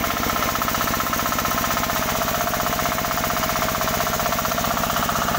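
18 hp diesel engine of a sawmill rig running steadily under test, with a fast, even chugging.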